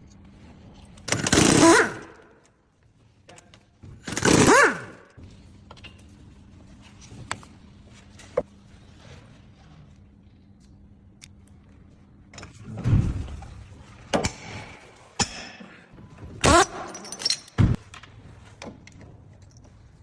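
Tool work on a Jeep Wrangler JL's front axle: four loud bursts of about a second each, some with a tone that slides in pitch, and sharp knocks and clicks between them.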